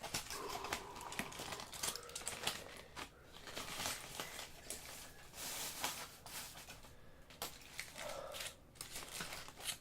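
Packaging crinkling and rustling in quick, irregular crackles, with some tearing, as food is being unwrapped.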